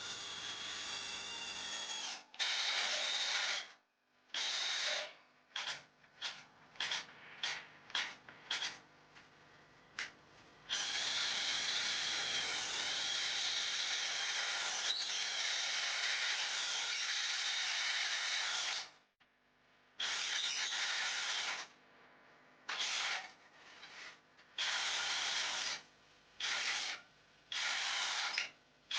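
Cordless drill motor running under the trigger: a string of short starts and stops, one continuous run of about eight seconds in the middle, then more short bursts near the end.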